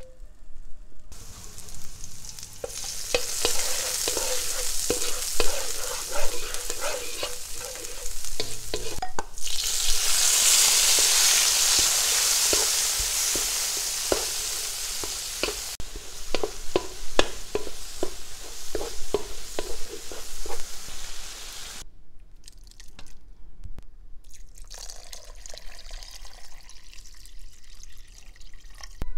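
Hot oil sizzling in a wok as chopped tomatoes fry, with a spatula scraping and tapping against the pan as it is stirred. The sizzling swells much louder about ten seconds in, then dies down to a quieter level later on.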